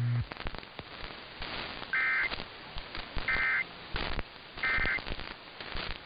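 Three short bursts of EAS digital data tones, about a second and a half apart: the end-of-message signal that closes a weather alert. They sound over crackling, clicking AM radio static.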